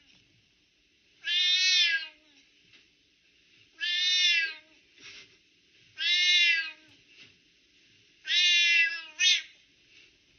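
A long-haired colorpoint cat meowing: four drawn-out meows about two and a half seconds apart, each rising then falling in pitch, the last followed at once by a short one.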